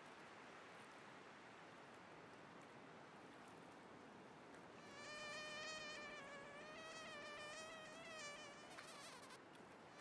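Faint steady hiss, then about halfway in a housefly starts buzzing, its pitch wavering up and down, until it cuts off shortly before the end.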